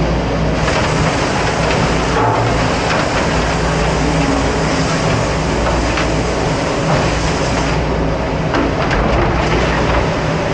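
Steady loud rushing noise with a low hum from a commercial dish machine and running water, with a few light knocks of plastic trays being set in a rack.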